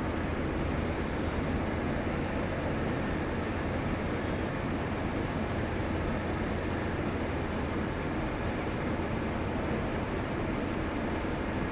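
Steady road traffic noise, a continuous even rumble with no distinct events standing out.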